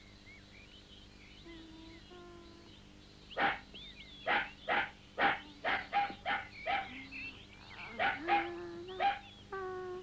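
Dog barking repeatedly: about a dozen short, sharp barks, roughly two a second, starting about three seconds in, over faint background music.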